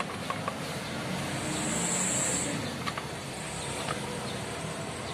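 A motor vehicle passing, its engine and tyre noise swelling to a peak about two seconds in and then fading, with a few faint light clicks.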